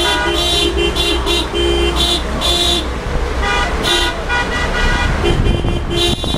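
Vehicle horns honking in many short blasts, at least two horns of different pitch tooting in an uneven rhythm, over the low rumble of the moving car with its window open.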